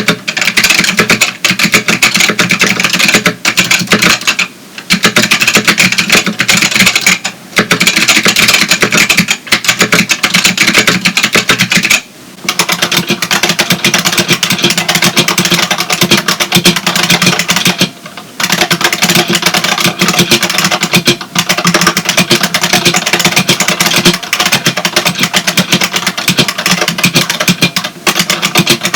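Rapid, continuous typing on a Matias Tactile Pro 4 with Matias Click switches (a clone of white Alps), giving a dense clatter of clicky keystrokes. After a brief pause about twelve seconds in, the typing switches to an IBM Model M, whose buckling-spring keys clack with a deeper ring.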